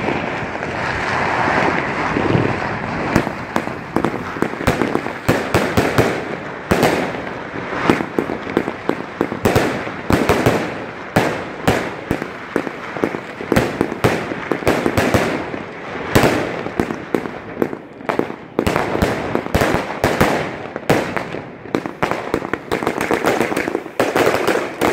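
RUBRO Event Palm Battery W-105, three fireworks cakes chained together in a fan, firing a rapid string of shots: launch thumps and bursting bangs, several a second.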